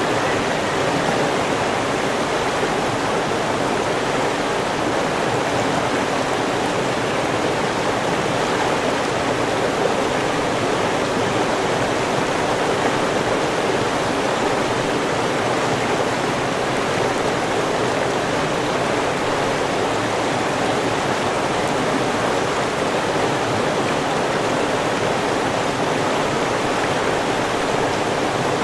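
River water flowing steadily, an even, unbroken rush of running water.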